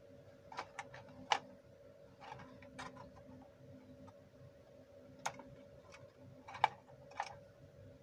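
Cutting pliers snipping small branches off a podocarpus: a series of irregular sharp clicks and snips, two of them louder, one about a second in and one nearer the end, over a faint steady hum.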